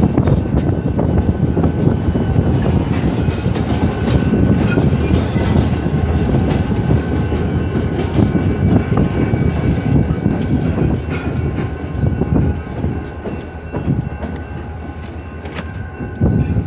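Freight train rolling through a grade crossing: hopper cars clattering over the rail joints, then two diesel locomotives rumbling past. The rumble eases off in the last few seconds as the train clears the crossing.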